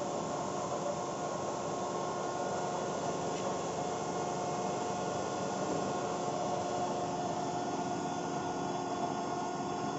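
San Rocco MEC 3 horizontal boring machine running, a steady machine hum with a few steady whining tones that hold the same pitch throughout, as it is driven along its cross (X) axis.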